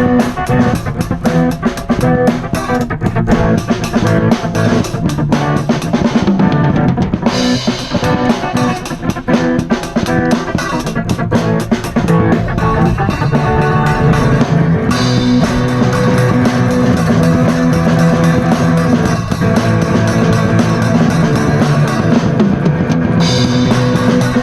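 Electric guitar through a Crate half-stack amp and a small Gammon drum kit playing an improvised rock jam together: steady drum hits under sustained, distorted guitar chords.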